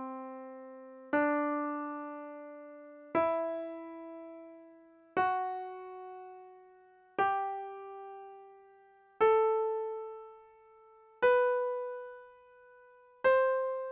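Piano-toned keyboard playing the C Lydian scale as an example, one note at a time. Each note is struck and left to fade, about two seconds apart, climbing step by step from C up an octave to the C above.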